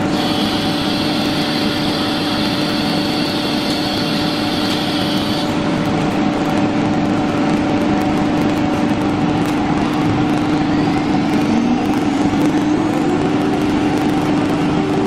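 CNC wood router running with a steady machine hum and a high whine. The whine stops about five seconds in, and near the end the hum glides up and settles at a higher pitch.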